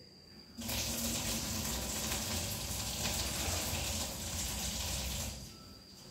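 Water poured from a plastic bottle gushing and splashing into a mop bucket. It starts abruptly under a second in and stops sharply about five seconds in.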